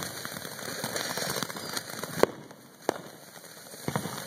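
Ground fountain firework spraying sparks with a dense crackling hiss that thins about halfway through, leaving a few sharp pops.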